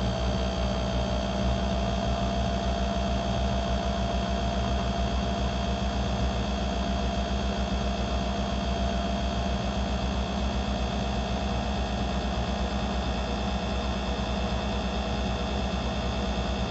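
Small electric motor of a watchmaker's lathe running at a steady speed, a constant hum with a thin steady whine over it, as it spins a pocket watch balance staff while its pivot is being filed down to size.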